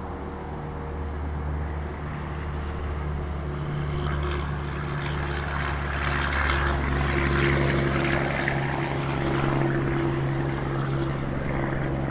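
A droning engine passing by, swelling to its loudest about halfway through and dropping in pitch as it goes.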